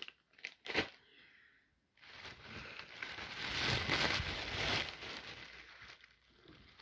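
Plastic bags rustling and crinkling as they are handled: a couple of short crinkles in the first second, then a longer rustle lasting about three seconds in the middle.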